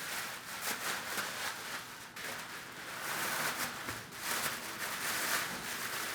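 Rustling and scraping of speaker packaging handled by hand, in uneven swells, as the Bose Companion 5 bass module is taken out of its box.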